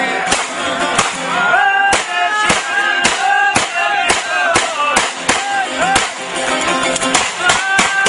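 Lively folk music with a wavering sung melody, over pistol shots fired into the air: sharp cracks about twice a second that come thicker near the end.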